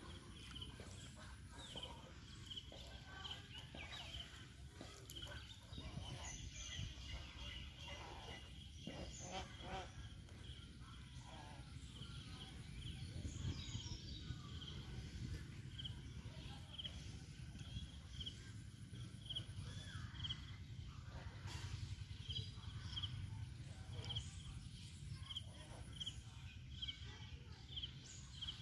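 Quiet outdoor ambience: a bird repeats short high chirps every second or so over a low, steady wind rumble.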